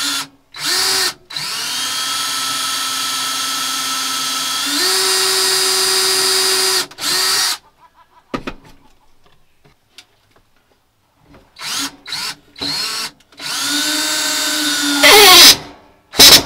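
Cordless drill running in a series of short trigger bursts into a wooden frame. There is one long run of about five seconds that steps up in speed partway through, and the loudest burst near the end drops in pitch as the motor slows.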